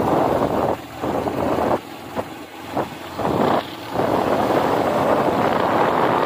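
Wind buffeting the microphone of a camera riding along a road: a rushing noise that comes and goes in short gusts, then runs steadily from about four seconds in.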